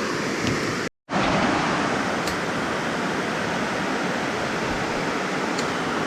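Steady rushing of water pouring over a spillway, broken by a brief cut to silence about a second in.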